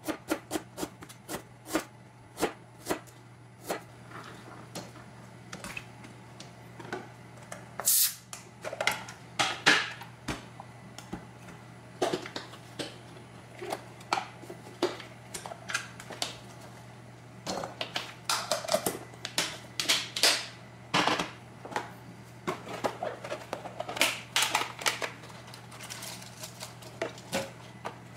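Chinese cleaver chopping ginger, garlic and scallions on a plastic cutting board: sharp knife taps, evenly spaced at first, then faster, denser runs of chopping in the second half.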